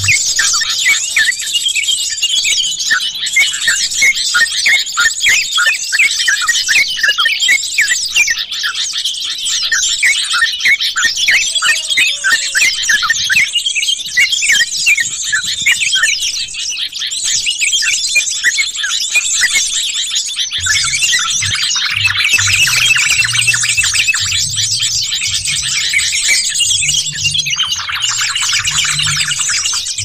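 Dense, noisy chorus of bulbul calls, many birds chattering and chirping over one another, as used to lure trucukan (yellow-vented bulbuls) and jogjog. From about twenty seconds in, a low throbbing runs underneath.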